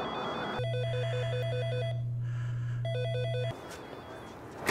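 Apartment building door intercom ringing in rapid electronic pulses. A strong, steady low buzz runs under the ringing from about half a second in until about three and a half seconds in, then cuts off.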